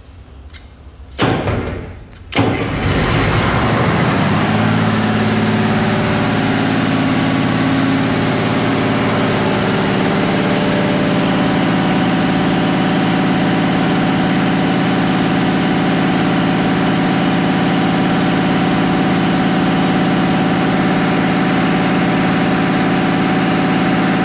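Caterpillar diesel fire-pump engine starting up. It cranks briefly about a second in, catches a moment later, then settles into a steady run.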